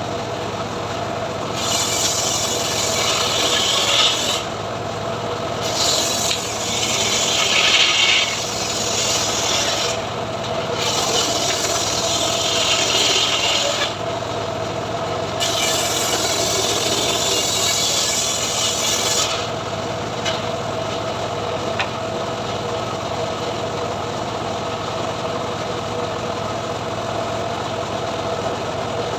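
Engine-driven srekel sawmill running while its blade cuts mahogany: four rasping stretches of a few seconds each over a steady engine hum, with the engine running on alone for the last third.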